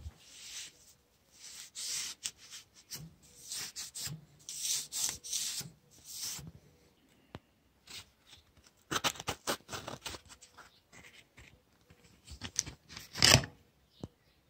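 A piece of coarse P40 sanding belt rubbed by hand along the rusty steel blade of an M95 bayonet to scour off the rust, in a series of uneven scraping strokes with short pauses. There is a sharp knock about a second before the end.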